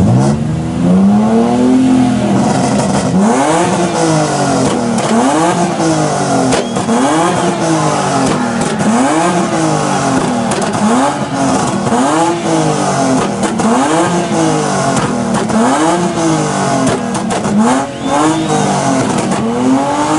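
Car engine revved over and over in a rev battle, each rev climbing and falling back, about one every second and a quarter.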